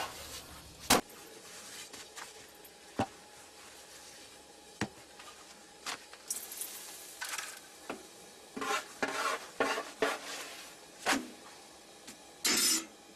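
Thin flatbread being made by hand on a domed iron griddle (saj): sharp knocks every second or two, with soft rustling and flapping as thin sheets of dough are handled, and a louder brief rustle near the end.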